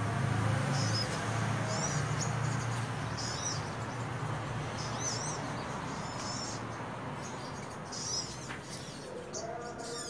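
Small songbirds in a tree chirping: short, high-pitched notes repeated about once a second over a steady low background hum.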